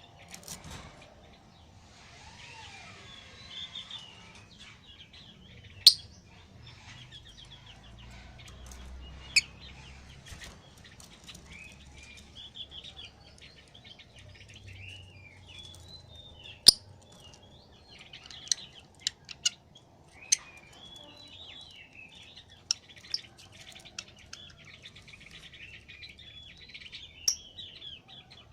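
Lovebird chattering in a long run of rapid, high twittering chirps. Sharp, loud clicks stand out now and then, with a quick cluster of them a little past the middle.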